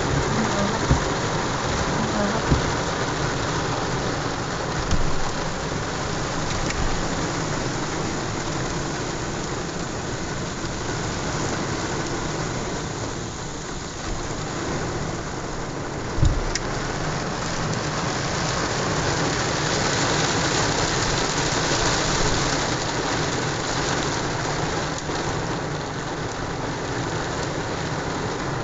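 Heavy rain beating steadily on a pickup truck's roof and windshield, with a few sharp knocks near the start and one about halfway through.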